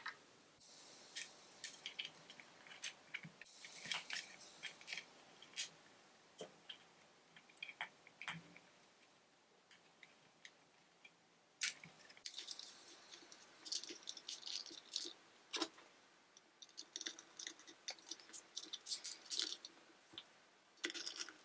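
Faint, scattered clicks and light rustling from hands handling small plastic parts, fitting a Roomba brush motor and its seals into the plastic brush-deck housing. One sharper click comes about two-thirds of the way through.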